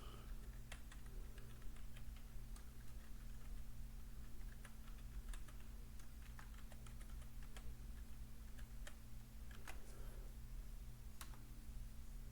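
Computer keyboard being typed on, scattered faint keystrokes entering a login password, over a steady low electrical hum.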